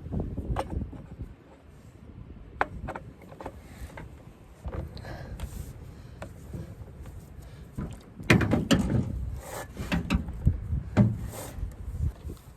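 Scattered clicks, knocks and rattles of a chainsaw being handled, with a busier run of knocking about two-thirds of the way through, as the chain that was thrown off the bar is put back on.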